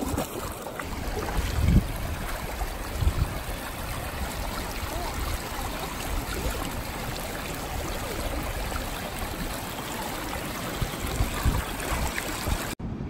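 Bare feet splashing and sloshing through shallow water, over a steady wash of moving water, with a few low thumps.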